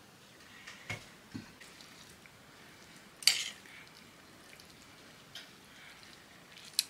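Quiet kitchen handling while rolling cabbage rolls: a couple of soft thumps early on, then a sharp clink of a metal spoon against the bowl of filling about three seconds in, and a few light clicks near the end.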